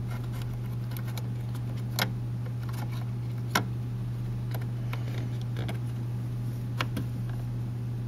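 A few sharp clicks as a laptop SO-DIMM RAM module is fitted into the 2011 Mac mini's memory slot, the clearest about two seconds in, at three and a half seconds and near seven seconds. A steady low hum runs underneath.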